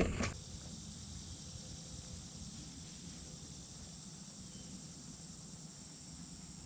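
Steady high-pitched drone of insects in summer grass, unbroken throughout. A brief rustle or knock comes right at the start.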